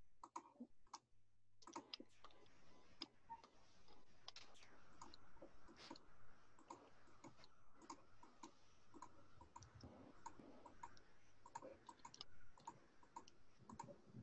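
Faint, scattered clicks of a computer mouse button and keyboard key presses, several a second.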